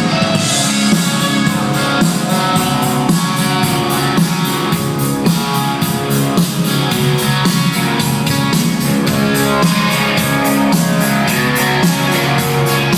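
Rock band playing, with electric guitar and a drum kit keeping a steady beat.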